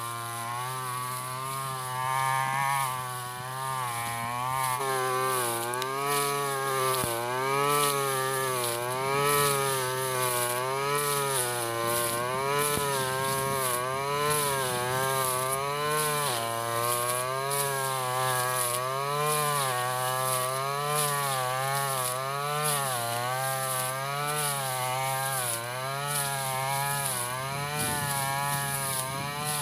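Stihl FR 3001 backpack brushcutter engine running hard, its pitch rising and falling every second or two as the cutting head swings through tall lalang grass and takes the load.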